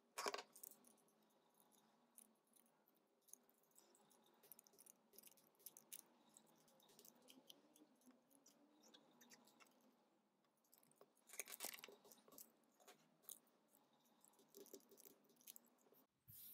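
Faint crunchy clicks and scrapes of a utility knife blade cutting and scraping 3D-printed plastic. The crackling is loudest just after the start and again about eleven and a half seconds in.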